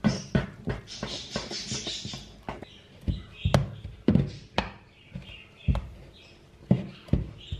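Spatula stirring and folding sticky bread dough in a wooden bowl: irregular soft knocks and thuds against the bowl, with scraping between them.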